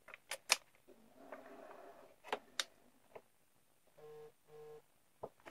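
Faint clicks and taps of plastic USB plugs and meter housings being handled and plugged together, with soft cable rustling. About four seconds in come two short, identical low electronic beeps.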